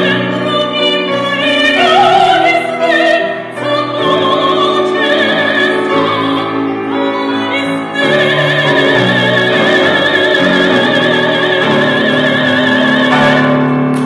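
A female soprano sings in an operatic style over an instrumental accompaniment, ending on a long held high note with a wide vibrato.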